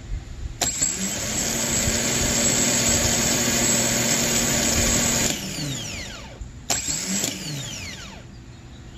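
Starter motor from a 6.0L LS2 V8, spun free on the bench: it clicks on and runs with a steady whine for about four and a half seconds, then cuts off and winds down with a falling whine. About a second later it is bumped on again briefly and winds down once more.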